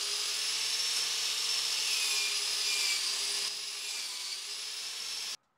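Electric angle grinder running at the bench, a steady high whine over a hiss. It drops a little in level about two-thirds through and cuts off suddenly near the end.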